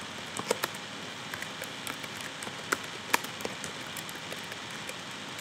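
Computer keyboard keys clicking irregularly as a short message is typed, over a steady hiss.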